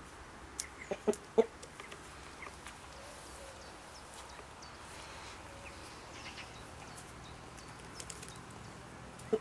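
Brahma rooster giving a few short, low clucks about a second in and one more near the end, with quiet between them.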